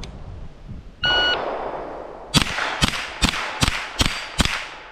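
Shot timer's electronic start beep, then about a second later a fast string of .22 rimfire rifle shots from a Ruger 10/22, roughly two to three shots a second.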